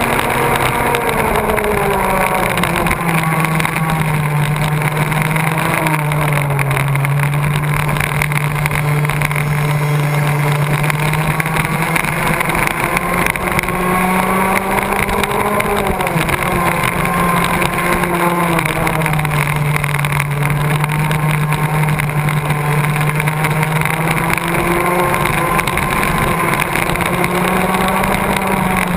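Go-kart engine running under race load, close to the microphone. Its pitch drops for the corners and climbs again on the straights, several times over, with a constant rushing noise underneath.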